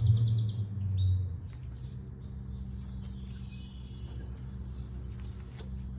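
Small birds chirping briefly at the start, over a low rumble that lasts about a second and a half and then a steady low hum with quiet room noise.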